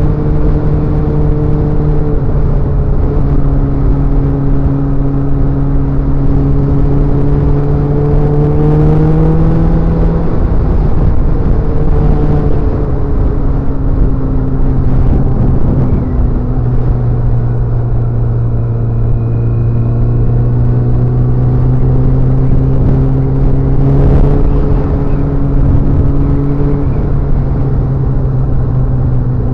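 Motorcycle engine running steadily while riding, its pitch creeping up and then stepping down several times as gears change, over a low rumble.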